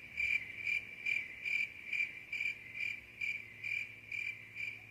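Cricket chirping sound effect: one even, high-pitched chirp repeating steadily a little over twice a second.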